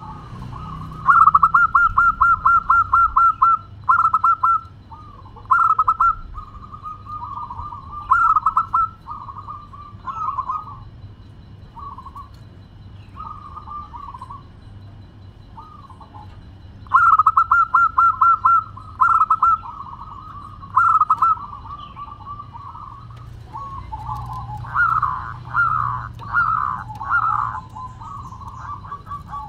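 Zebra dove (perkutut) singing in repeated phrases of staccato coos. Each song opens with a rapid run of notes, heard about a second in and again about two-thirds of the way through, followed by shorter phrases, with a looser series of notes near the end.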